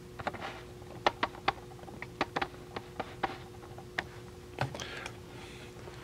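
About a dozen light, irregular clicks and taps from hands on the 1957 Remington Quiet Riter portable typewriter, over a faint steady hum.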